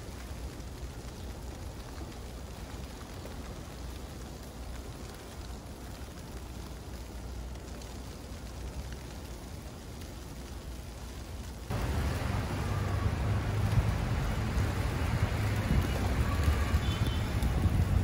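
Steady outdoor hiss with a low rumble, like wet snow and slushy street traffic in a snowstorm. About twelve seconds in it cuts suddenly to a louder, busier din with faint tones of music.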